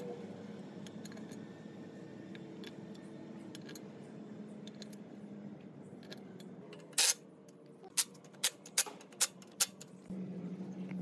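Metal clinks of steel bolts being handled and set into a cover plate on a cast gearbox housing: one longer clatter about seven seconds in, then five quick sharp clicks, over a low steady hum.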